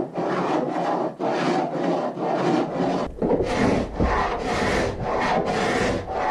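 Hand scraping on the wooden cabin side: a run of short rasping strokes, about two a second, as old body filler and wallpaper residue are scraped off the wood.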